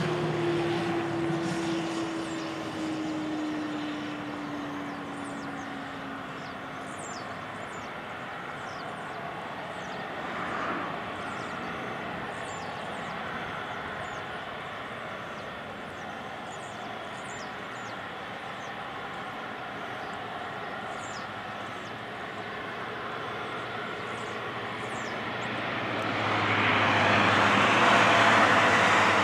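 Airbus A330-200's Rolls-Royce Trent 700 turbofans running as the airliner taxis onto the runway. A whine slowly falls in pitch over the first several seconds. Near the end the engine noise swells to a loud rush as thrust builds for the takeoff.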